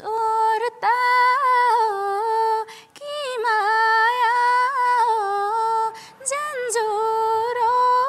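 A young woman singing a Nepali song unaccompanied, in three long held phrases with short breaths between them.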